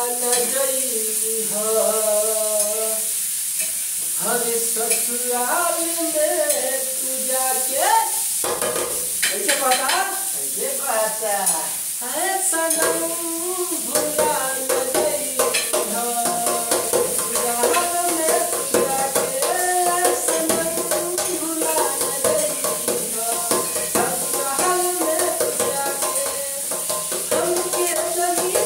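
A man sings a Bhojpuri song, drumming along with his hands on the lid of a large metal pot as a makeshift drum: quick slaps and taps on the metal under the melody, over a steady hiss.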